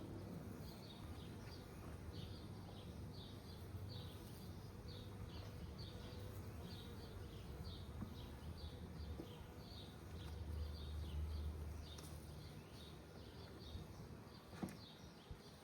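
A bird chirping over and over, short high chirps about two a second, over a low rumble that swells around ten to twelve seconds in. There is a sharp click near the end.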